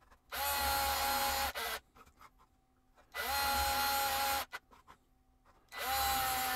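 Cordless drill spinning up and boring three shallow 8 mm holes into plywood, one after another. Each run lasts about a second and a half, its motor whine rising at the start and then holding steady. These are counterbores cut about 3 mm deep so the mounting screw heads sit flush, with light clicks between the holes.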